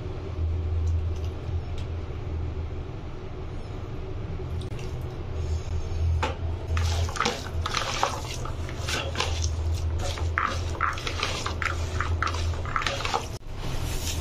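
A hand kneading and squeezing an oily chopped onion and green chilli mix in a plastic bowl: wet squelching and crackling, busier from about six seconds in, over a steady low rumble.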